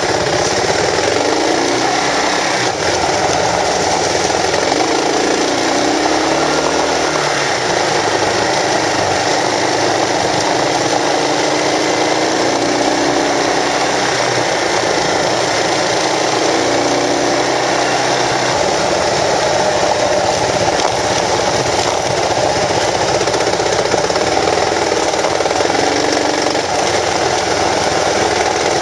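Kawasaki KLR650 single-cylinder engine running under way on a gravel road, its pitch rising and falling with the throttle, under a steady rush of wind and tyre noise.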